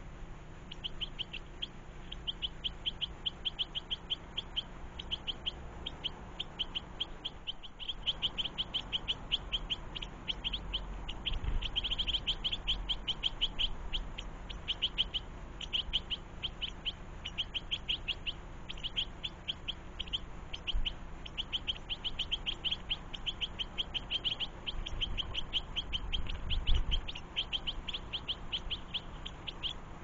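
Goldfinch calling: a rapid, steady series of short high chirps, about four or five a second, going on with brief pauses and loudest about twelve seconds in. A single low bump near the end.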